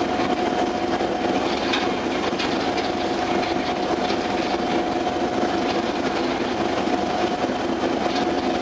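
Steady drone of a passenger ferry under way: engine hum with a constant whining tone over the rushing hiss of water along the hull and wind.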